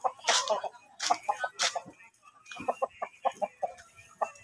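Chickens clucking: short repeated clucks in several quick runs, with a few brief scuffing noises among them.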